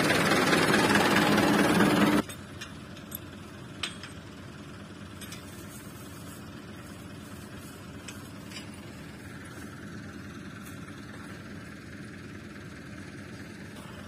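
Music plays loudly for about two seconds, then cuts off suddenly. Faint, steady outdoor background follows, with a few sharp clicks.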